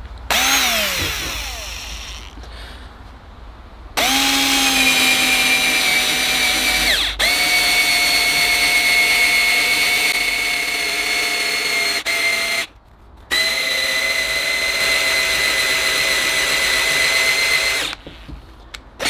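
Workzone 18V cordless drill motor boring a 6–7 mm bit into a thick block of wood. A short whir winds down near the start, then a long steady whine under load, with a brief pause about two-thirds of the way through before it runs again and stops about a second before the end.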